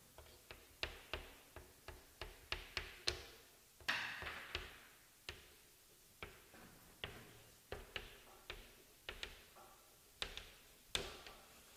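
Chalk writing on a chalkboard: a run of sharp, irregular taps as the letters are struck out, with a longer scrape of chalk about four seconds in.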